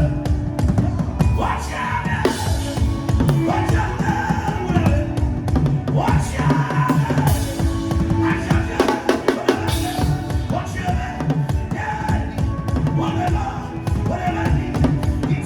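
Drum-led worship music: fast, busy drumming over a repeating bass line, with singing voices in the mix.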